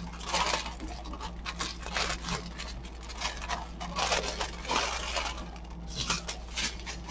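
Small plastic bags of diamond painting drills crinkling and rustling as they are handled, starting and stopping irregularly.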